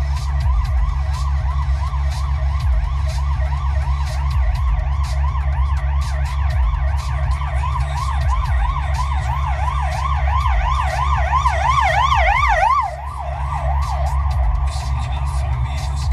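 Emergency vehicle siren on a fast yelp, its pitch sweeping up and down about three times a second. It grows louder, drops off sharply about two-thirds of the way through and soon fades out, over a steady low rumble.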